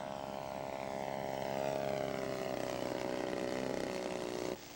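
A radio-controlled scale model airplane's engine running in flight, its pitch falling slowly as it passes, then cutting off suddenly near the end.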